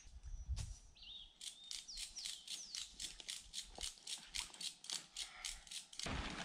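Faint rapid ticking, about five ticks a second, with a few short bird chirps about a second in. Near the end a plastic tarp starts to rustle as it is lifted.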